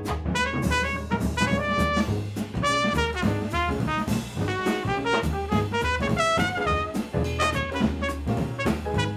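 Trumpet playing a jazz solo, quick runs of separate notes, over a jazz band's drum kit and low accompaniment.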